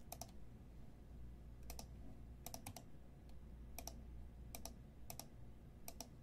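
Faint clicking at a computer: short clicks, mostly in quick pairs, about once a second, over a low steady hum.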